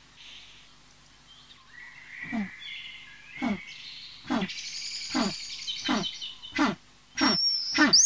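A series of short animal-like calls, each falling steeply in pitch, starting about two seconds in and repeating roughly once a second, closer together near the end, over a thin high whistling tone.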